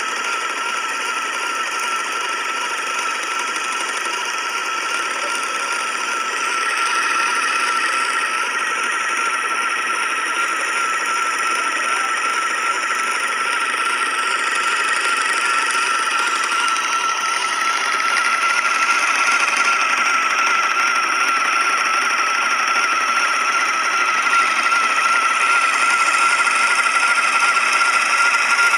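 Electric wool spinner running as it spins sheep's wool into yarn: the motor and spinning flyer give a steady whine over a whirring hiss. It gets a little louder about six seconds in and again a little past the middle.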